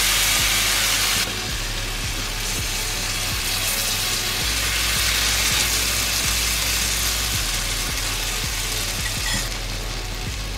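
Suji and vegetable chilla batter sizzling on a hot, ghee-greased tawa; the sizzle drops a step about a second in and again near the end.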